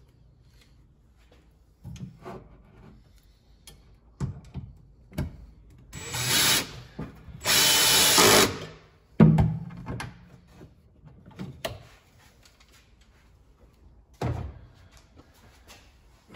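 Cordless drill driving screws through a metal IKEA drawer runner into the cabinet side, in two short runs around the middle. Clicks and knocks of the runner and parts being handled come before and after, with one loud knock just after the second run.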